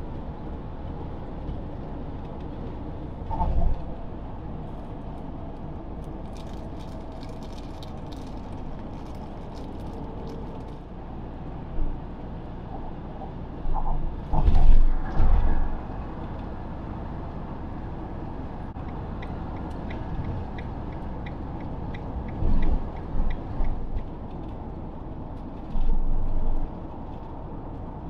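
Steady road and engine noise inside a moving Hobby motorhome's cab. Now and then it knocks and rattles, with one louder bump in the middle and a brief run of quick, even ticks a little later.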